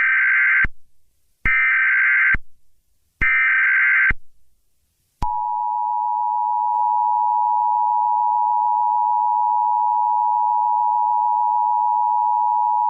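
Emergency Alert System tones: three short bursts of the SAME data header, a harsh warbling screech just under a second each, then the steady two-note EAS attention signal starting about five seconds in.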